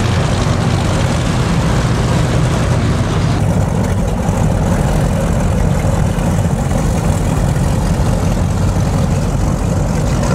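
Large offshore powerboat engines running at low, idling speed: a loud, steady, deep rumble. The higher hiss above it drops away about three and a half seconds in.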